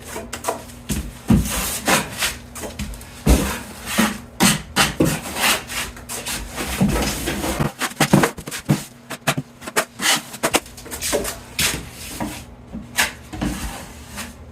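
Drywall knife scraping 45-minute quick-set joint compound across a wall patch in a run of uneven, rapid strokes, applying a second coat.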